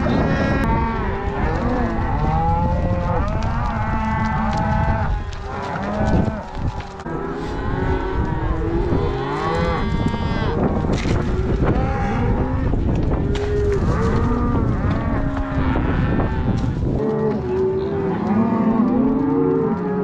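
A herd of cattle mooing, many calls overlapping without pause, over a low rumble that drops away about three seconds before the end.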